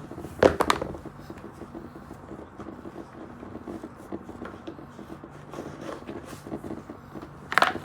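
Scraping and handling noises of a sneaker being pulled onto a foot, with two louder scuffs, one about half a second in and one near the end, over a low steady hum.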